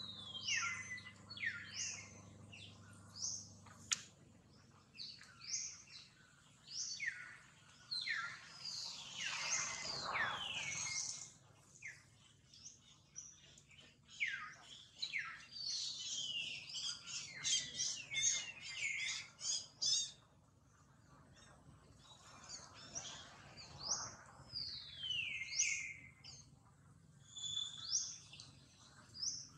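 Birds chirping: a string of short, high whistled calls that sweep downward in pitch, with a quick rapid trill of notes about two-thirds of the way through.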